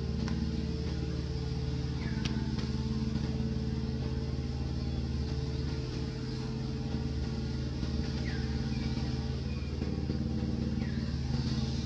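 A motor engine running steadily at idle, an even low hum, with a few faint short high chirps over it.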